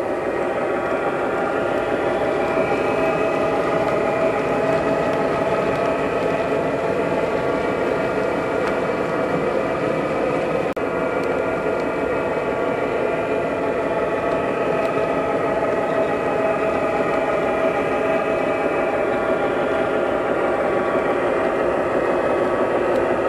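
O-scale three-rail model diesel train running steadily: electronic diesel engine sound over the rolling of coal hopper cars on the track.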